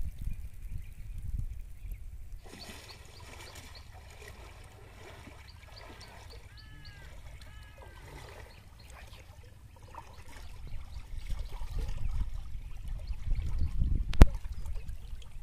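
Pond water sloshing and trickling around a person wading waist-deep, getting louder over the last few seconds, with one sharp knock near the end.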